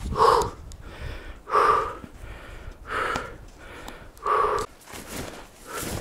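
A person breathing hard with a loud, puffing exhale about every second and a half.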